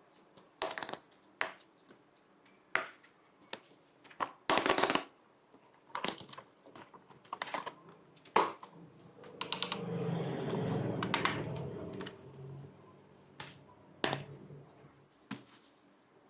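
Scattered clicks and knocks of small objects being handled and tapped, with a low hum for about three seconds around the middle.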